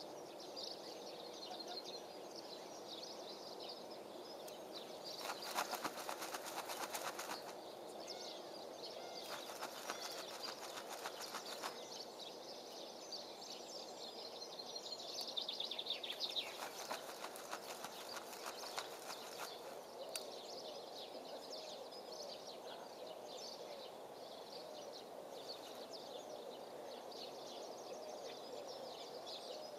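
Small birds chirping and singing in the background over a steady faint hiss, with three stretches of a few seconds each of rapid crackling or rustling.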